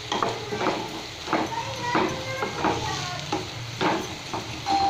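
A spatula scraping and tossing shredded vegetables around a black nonstick wok, about two strokes a second, over the light sizzle of the vegetables frying in oil.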